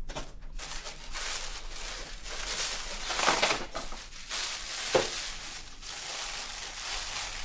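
Tissue paper rustling and crinkling as it is pulled out of a gift bag, loudest about three seconds in, with a sharp crackle about five seconds in.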